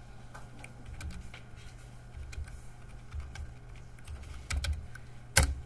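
Computer keyboard keys clicking as a calculation is typed, ending in one sharper, louder key press about five seconds in. A steady low hum runs underneath.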